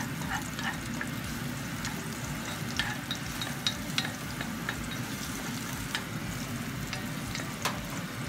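Chopped garlic sizzling in hot oil in a nonstick pan as it is sautéed first for a guisado, stirred with a wooden spoon. Scattered sharp ticks sound over the steady frying, the loudest about three, four and nearly eight seconds in.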